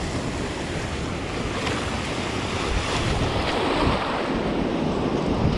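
Small waves washing in over sand and around jetty rocks in shallow water, with wind buffeting the microphone.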